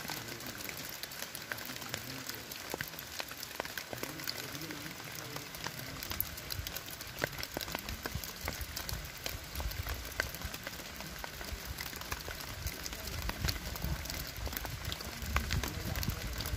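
Faint, distant murmured voices over a steady hiss, with many scattered sharp ticks and crackles; a low rumble builds near the end.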